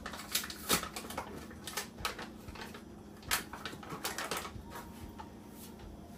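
Light, irregular clicks and taps of kitchen utensils and containers being handled, several a second, while flour is got out for dumpling dough.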